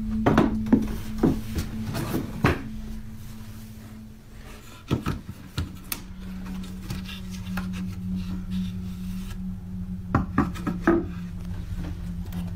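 Loose wooden floorboard being handled and pried up: scattered knocks and scrapes of wood, in clusters near the start, about five seconds in and near the end, over a steady low hum.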